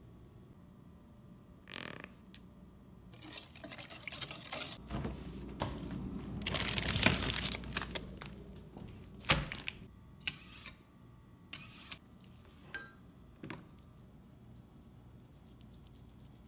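Food-preparation handling noises: a few sharp knocks and clinks, with a longer stretch of rustling and handling in the middle.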